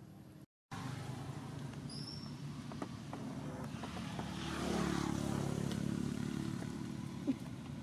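Engine hum of a passing motor vehicle, growing louder through the middle and easing off again, with a single sharp click near the end.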